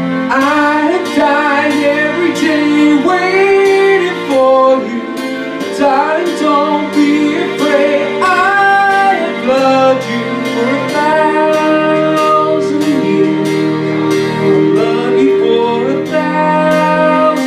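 A man singing a song live into a microphone over a backing track, with a light, steady beat; the vocal line comes in just after the start.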